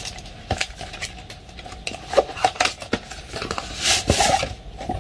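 Hands opening and handling a cardboard retail box and its paper insert: a string of light clicks and taps, with a longer rustling swish about four seconds in.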